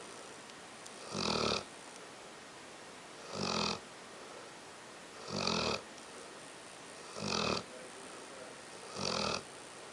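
A sleeping pet snoring: five short snores about two seconds apart, each lasting about half a second.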